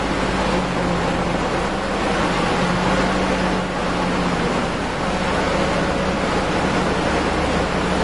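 A vehicle engine runs steadily under a heavy rush of wind noise on the microphone, with a low hum that holds one pitch.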